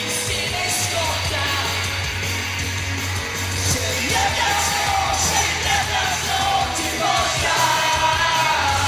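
Live rock band playing on stage, heard from the audience: electric guitars, bass and drums with a lead vocalist singing over them.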